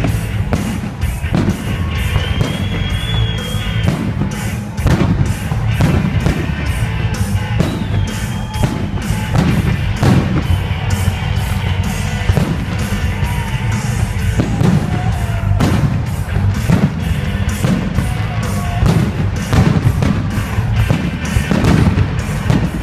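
Fireworks bursting in a fast string of bangs, two or three a second, with a few whistling glides, over loud music.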